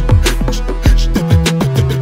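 Instrumental hip-hop beat with no vocals: regular drum hits over a deep bass that slides down in pitch, with a held bass note in the second half.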